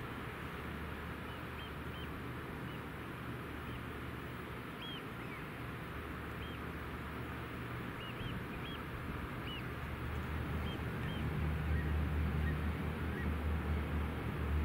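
Low, steady engine hum of a tour catamaran that grows louder from about ten seconds in as the boat comes close. Short, high bird calls are scattered throughout.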